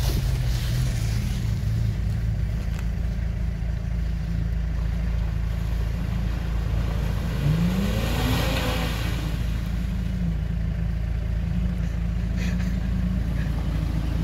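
Off-road 4x4 engines running steadily. About seven and a half seconds in, the Suzuki Grand Vitara's engine revs up as it drives through deep mud ruts, with a brief rush of tyre and mud noise.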